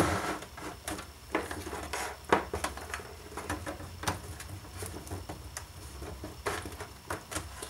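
Handling noise: scattered clicks and knocks as the opened Apple Macintosh LC case is turned on the bench and its cables are moved, with a sharper knock about two seconds in.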